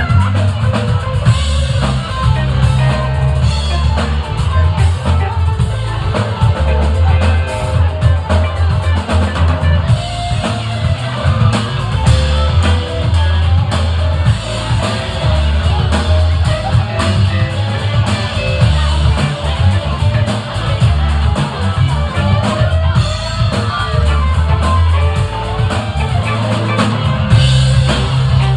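Live rock band playing loudly: electric guitar, bass guitar and drum kit, with a heavy bass line and a steady drum beat.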